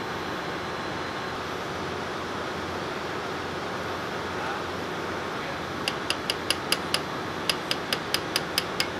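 Steady machinery noise of a ship's engine room. About six seconds in, a hammer strikes a steel bushing puller in two quick runs of sharp, ringing metallic taps, thirteen in all, to work the bowl bushing of a fuel oil purifier loose.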